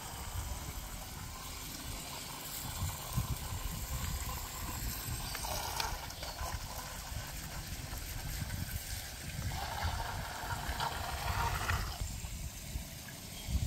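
Toy RC jet ski with two small electric motors running on the water, its propellers churning the surface, loudest around six seconds in and again from about ten to twelve seconds in, over a steady low rumble.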